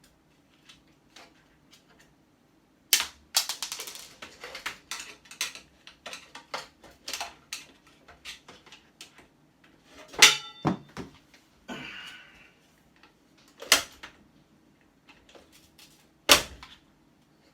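Hand tools clicking, knocking and clattering against a stainless steel electrical box while it is taken apart to get at the circuit breakers. A run of rapid clicks and rattles comes first, then sparser knocks, with four sharp louder knocks spread through.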